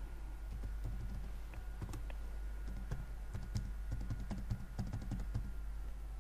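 Computer keyboard being typed on: a run of irregularly spaced key clicks as a command is entered.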